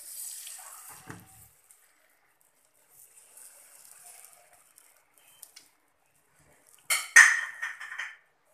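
Thin rava dosa batter sizzling faintly on a hot non-stick pan while a metal ladle spreads it, with soft scrapes and clinks of the ladle on the pan. A sudden loud noise near the end.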